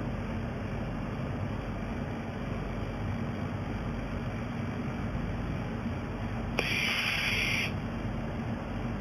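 Welding machine firing a weld: a click, then a bright hiss lasting about a second, over the steady hum of running machinery with a faint low tone.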